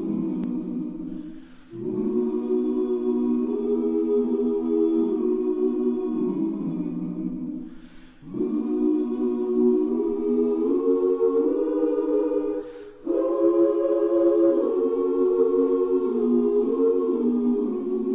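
A choir singing unaccompanied in slow, sustained chords, in long phrases broken by three brief pauses.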